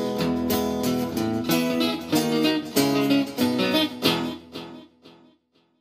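Two acoustic guitars playing the closing instrumental notes of a song, strummed chords with picked lead notes over them, dying away to silence about five seconds in.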